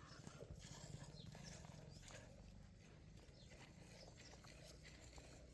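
Near silence: faint scattered knocks and shuffles of cattle moving in a shed, over a low steady rumble.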